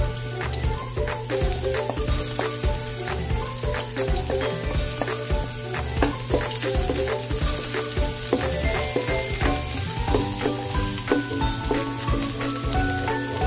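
Julienned ginger and chopped garlic sizzling in hot oil in a nonstick wok, with a wooden spatula knocking and scraping as it stirs. Background music plays underneath.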